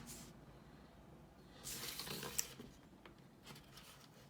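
Plastic screen bezel of an HP Chromebook 14 being pried away with a flathead screwdriver: faint scraping about a second and a half in, with a sharp click of a clip letting go.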